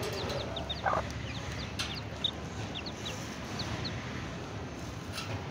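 Young chicks peeping: many short, high cheeps scattered through, thinning out in the second half, with one brief, lower cluck from the hen about a second in.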